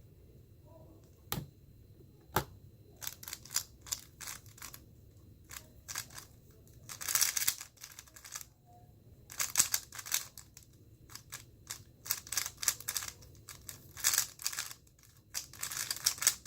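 Moyu Weilong GTS2M 3x3 speedcube being turned fast in a timed solve: a couple of single clicks, then bursts of rapid plastic clacking from quick runs of turns, with short pauses between them.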